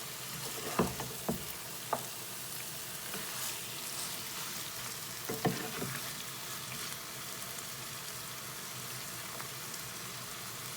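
Marinated lamb and masala sizzling steadily in a pot over medium-high heat as the masala cooks down, with a few short knocks and scrapes of a spatula turning the meat in the first half.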